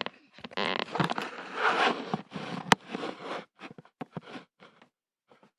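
Rustling and scraping from things handled close to the microphone, with a sharp click about two and a half seconds in and a few light taps near the end.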